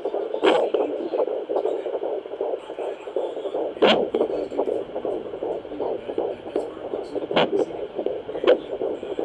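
Fetal heartbeat picked up by a handheld fetal Doppler: a fast, galloping whooshing pulse through the Doppler's small speaker. A few sharp, louder bumps break in four times.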